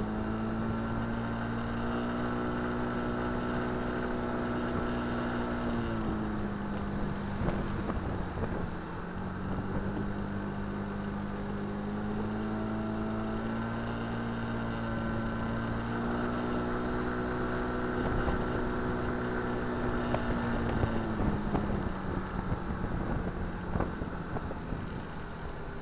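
Kymco Dink Street scooter's single-cylinder four-stroke engine under way. Its drone climbs in pitch, holds steady, and falls away about six seconds in as the throttle closes. It then climbs and holds again before falling off a little after twenty seconds, with wind noise on the microphone.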